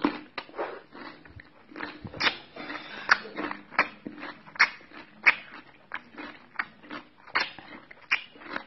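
A person chewing a crunchy raw green vegetable close to the microphone, with a steady run of loud crunches a little more than one a second.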